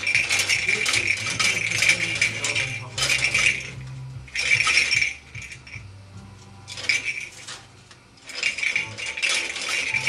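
Pet parrot shaking and tossing a jingling toy: spells of metallic rattling and jingling, the first about three and a half seconds long, then shorter bursts with brief pauses between them.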